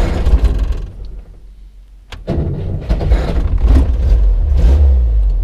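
Vehicle engine running with a low rumble that drops away briefly about a second in. A sharp click follows a little after two seconds, then the engine runs again and grows louder near the end.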